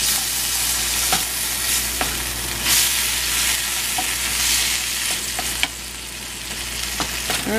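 Sliced bell peppers sizzling in butter in a nonstick skillet, stirred and scraped around with a wooden spoon, with a few knocks of the spoon against the pan.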